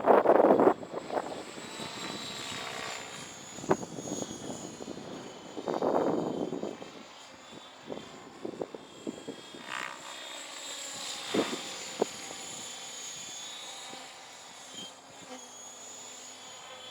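Align T-Rex 700E electric RC helicopter in flight: a steady high whine from its brushless motor and spinning rotor head, with two loud rushing surges, one at the start and one about six seconds in, and a few sharp ticks.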